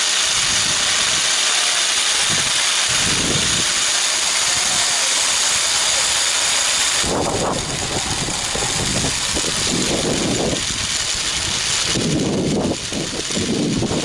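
Wind rushing over an action camera's microphone while riding a sky bicycle along its overhead cable: a steady hiss, joined from about halfway through by irregular low buffeting gusts.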